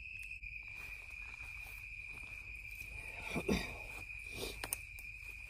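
Crickets chirring steadily at one high pitch, with a couple of faint knocks past the middle.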